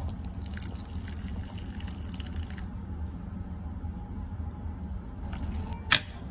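Hot water poured from a mug onto instant oats in a bowl, in two stretches, with a single sharp knock near the end.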